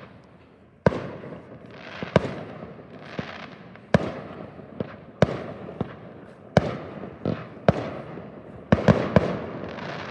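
Fireworks going off: about a dozen sharp bangs at uneven intervals, with crackling between them and three bangs in quick succession near the end.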